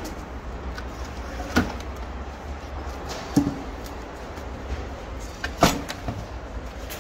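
Firewood logs being shoved into the firebox of a wood-fired stove, knocking against its walls and each other: three sharp wooden knocks about two seconds apart, over a steady low rumble.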